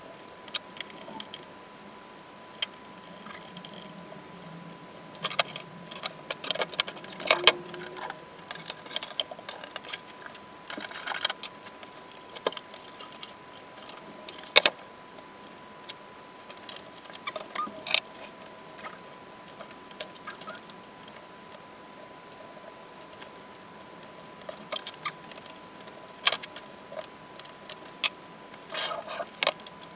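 Irregular clicks and small rattling clatters, like small hard parts being handled, over a steady high-pitched tone.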